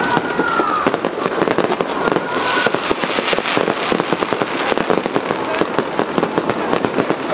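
Fireworks display: a dense, continuous volley of bangs and crackles from aerial shells and rising comets going off.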